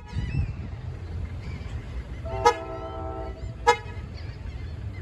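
A railroad train's multi-tone air horn sounds once, a steady chord lasting about a second. Two sharp clicks come about a second apart during and just after it, over a low rumble.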